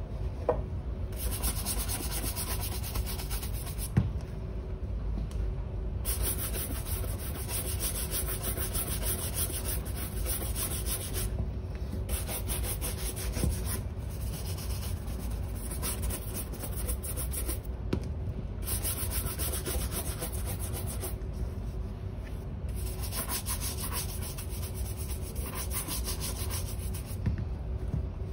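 A horsehair shoe brush rubbed fast back and forth over the leather of a dark brown shoe, giving a dense scratchy swishing. It comes in runs of several seconds, broken by brief pauses.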